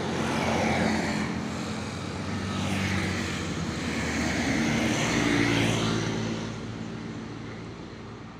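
Traffic on a road close by: motor vehicle engine noise swells for several seconds and fades toward the end.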